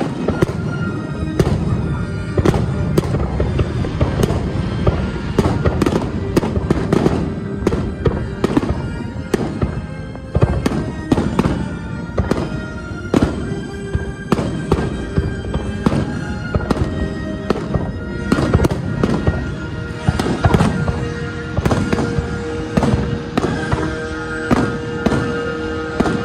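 Aerial fireworks display: shells bursting one after another, dozens of sharp bangs and booms, several a second at times, over a steady rumble, with music playing underneath.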